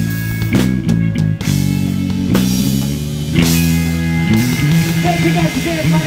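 Live rock band playing: electric guitar chords with drums, first in short stabs, then held. A singing voice comes in near the end.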